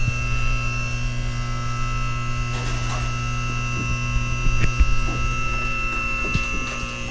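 Electric-hydraulic vehicle lift's pump motor running steadily, raising a golf cart, with a few faint clicks.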